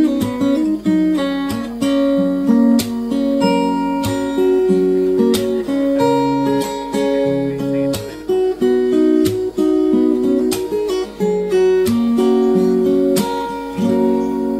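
Background music: an acoustic guitar strumming and picking chords.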